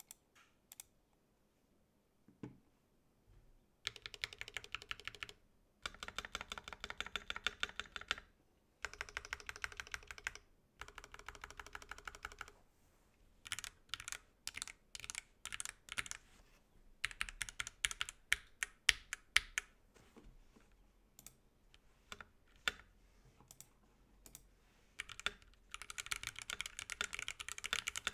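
Typing on a KBD67 MKII custom mechanical keyboard with a brass plate, stock C3 Banana Split linear switches and HK Gaming PBT keycaps. After a few seconds of near quiet with a couple of lone clicks, fast runs of keystrokes come in bursts of one to two seconds, with pauses and some slower single presses between them, and a dense run near the end.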